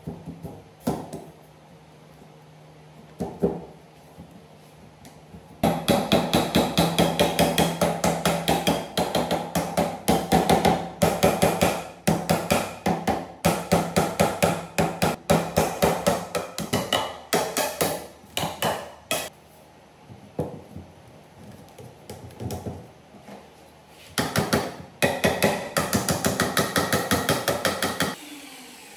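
A wooden block knocking on hollow green bamboo poles, driving the cross-rails into the holes in the frame's uprights. The knocks come in quick runs of about five a second, each with a hollow, ringing tone. There are two long runs, one from about six seconds in and a shorter one near the end, with a few single knocks between.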